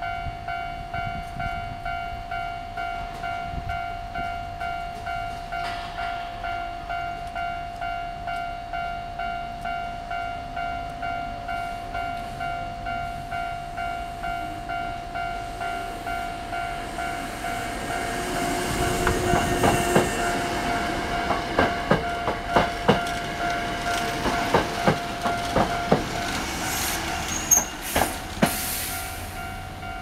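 Japanese electronic level-crossing bell ringing steadily, about two strokes a second. From about 17 seconds in, a Hankyu 6000 series electric train grows loud as it passes, its wheels clacking over the rail joints in quick sharp runs. The bell stops just before the end.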